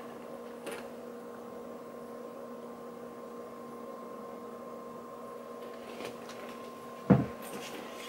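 A steady electrical hum with faint handling sounds as a leather handbag with gold chain straps is opened and looked into; a single dull thump about seven seconds in.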